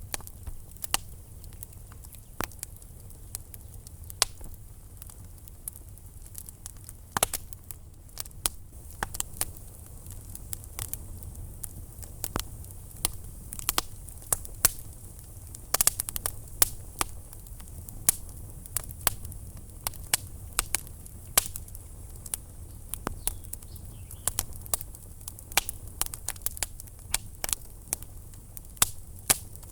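Wood fire burning in a fireplace, crackling with many irregular sharp pops and snaps over a low steady rumble of the flames.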